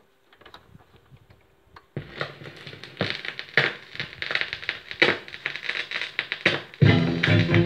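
Surface crackle and pops from a vinyl 7-inch single playing on a turntable, faint at first and much louder from about two seconds in. Near the end the record's reggae music starts in.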